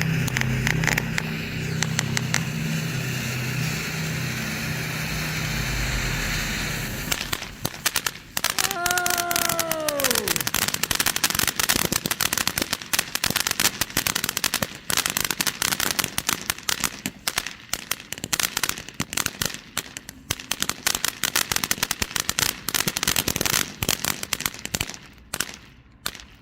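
A 200-gram consumer firework fountain, Magnus Fireworks' 3 Minute Madness, spraying with a steady hiss for about the first seven seconds. It then breaks into a dense, rapid crackle that thins out near the end. A brief falling whistle-like tone sounds about nine seconds in.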